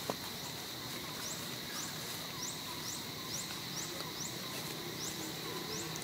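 Forest ambience: a steady high insect drone, joined about a second in by a run of quick, high rising chirps, about three a second. A single click sounds at the very start.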